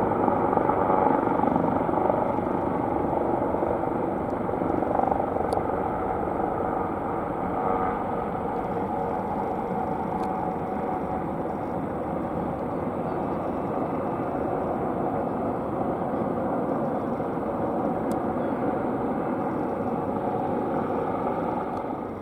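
Jet noise from a Boeing 747-8F freighter's four turbofan engines climbing away after takeoff: a steady, heavy rumble that slowly fades.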